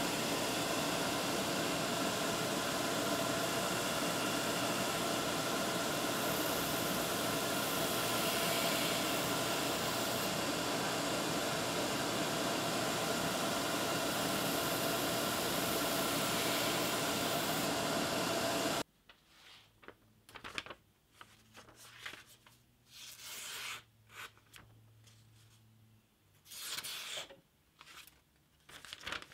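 Belt grinder running with a steel stiletto blade held against its white belt: a steady, loud whine with many held tones that cuts off abruptly about 19 seconds in. After that come short, intermittent rubbing and rustling sounds as the blade is handled and wiped with paper towel.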